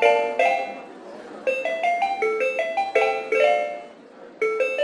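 Outro jingle music: quick runs of short, bright chiming notes that climb in pitch, a new phrase starting about every second and a half.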